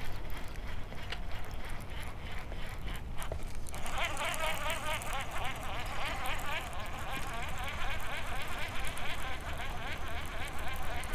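Spinning reel cranked fast on a fishing rod: a steady buzzing whir of the retrieve that starts about four seconds in, over wind rumbling on the microphone.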